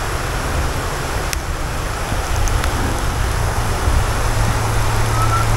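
Wind buffeting the microphone, with a steady rush of river water running over a stone riffle.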